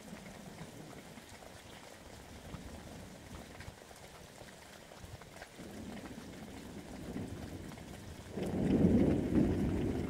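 Steady rain with thunder: a low rumble builds about halfway through, then a loud, deep roll of thunder comes near the end.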